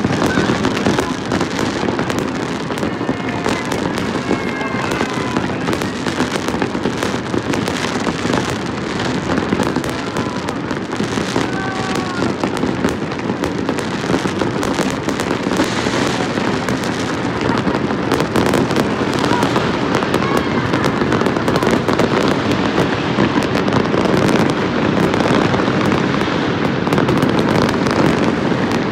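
Fireworks bursting in a dense, unbroken barrage of bangs and crackles.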